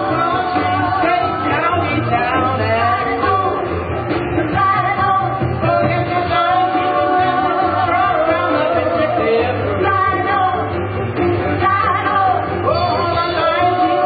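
Live band music with voices singing over a steady low accompaniment.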